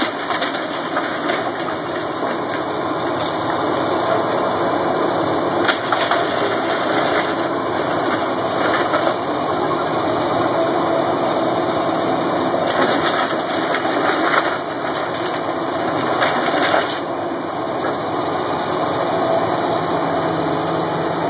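CAT tracked excavator's diesel engine running steadily under load, with repeated crashes and cracking of splintering wood and debris as the bucket tears into a wood-framed house.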